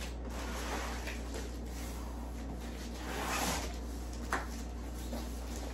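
Large cardboard box being shifted and scraped along as it is walked across the floor, with a short knock about four seconds in, over a steady low hum.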